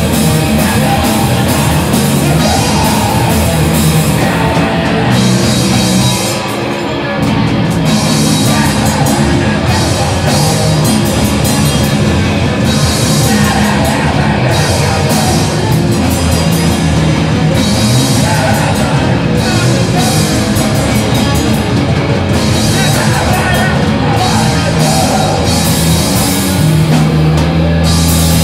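Live rock band playing loud: electric guitars and a drum kit with crashing cymbals, with a brief let-up about six seconds in before the full band comes back in.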